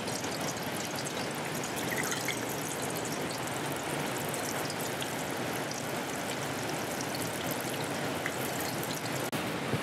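Battered pieces of sea cucumber deep-frying in a pot of hot oil as more are dropped in: a steady sizzle with fine crackling.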